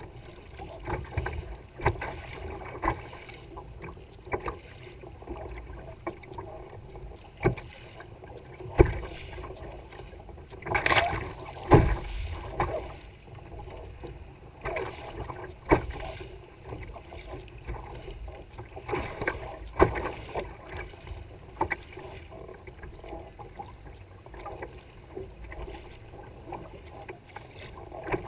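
Paddling a Libra tandem sea kayak through choppy water: paddle blades dipping and pulling, and small waves slapping and splashing against the bow. The splashes come irregularly, every second or two, with the loudest ones about a third of the way through and again a little later.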